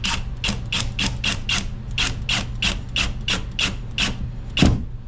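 Cordless FLEX 24V drill/driver driving a screw through the drywall into a wood backer strip: a regular run of sharp rasping clicks, about three a second, ending with one louder knock just before the end.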